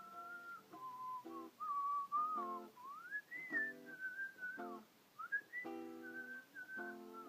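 A person whistling a gliding, wavering melody over strummed acoustic guitar chords, as an instrumental break in a song.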